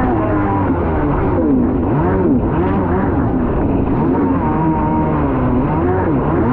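Kawasaki 650SX stand-up jet ski's two-stroke twin engine revving up and down over and over as it rides through choppy water, its pitch rising and falling about once a second, over a steady rush of water and wind.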